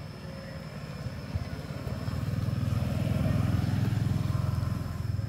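A motorbike engine passing by, growing louder over the first three seconds and easing off slightly near the end.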